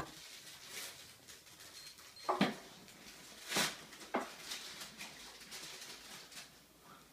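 A tabby cat batting and nosing a small toy across a hardwood floor: a few short knocks and scrapes, the loudest about two and a half and three and a half seconds in.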